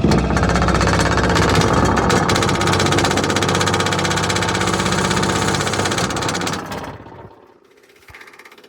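Riding lawn mower's engine running loud and fast, just after being started, then cutting out about seven seconds in.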